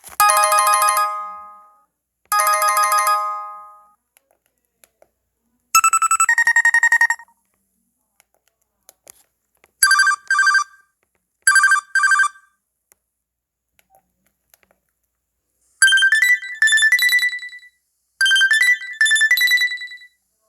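LG enV3 cell phone playing a series of short ringtone and alert tones with silences between. A bright decaying chime sounds twice, then a two-note tone, then two quick trilling bursts, then a short rising melody twice.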